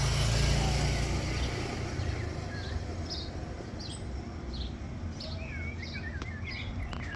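Outdoor ambience: a low rumble, strongest in the first two seconds and then easing, with birds chirping repeatedly from about two and a half seconds in.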